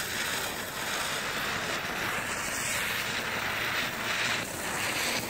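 Small ground firework spraying sparks: a steady hiss that starts suddenly on ignition.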